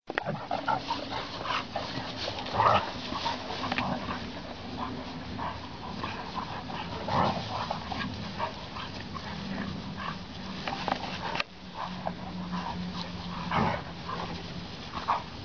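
Dogs playing rough together, a bulldog, a Dogo Argentino and a Jindo, with many short dog vocalisations coming irregularly, several louder ones standing out.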